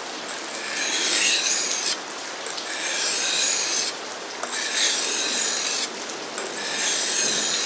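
Becker BK7 knife blade drawn across a water-wetted sharpening stone: about four long rasping strokes, each a bit over a second, with short pauses between them, working a slurry to raise a working edge.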